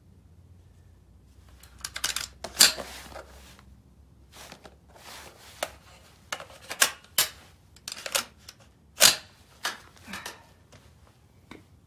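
Metal clicks and clacks of a Rock River Arms .308 semi-automatic rifle being hand-loaded: a round too long for the magazine is put in by hand and the action is worked, as on a bolt-action. A dozen or so separate sharp clacks, the loudest about two and a half seconds in and about nine seconds in.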